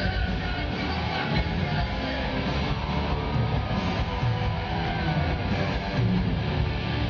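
Live heavy metal band playing, with electric guitar to the fore.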